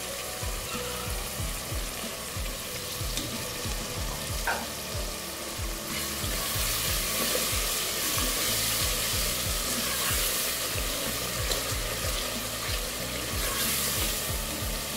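Onion-tomato masala with spices sizzling and frying in oil in an aluminium pressure cooker, stirred with a spoon. The sizzle grows louder about six seconds in as the masala is roasted (bhuna) with a little water so the spices don't burn.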